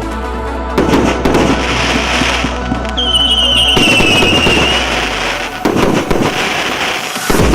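Consumer fireworks cake of 30 mm shots firing, with bursts of crackling breaks about four times and a high, slightly falling whistle about three seconds in. Background music plays underneath.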